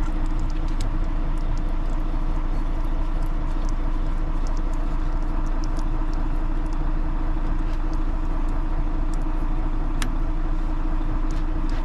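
Rosenbauer firefighting truck's engine running steadily, an even hum with no change in speed, with a few light clicks from the roof turret's controls being worked by hand, the sharpest about ten seconds in.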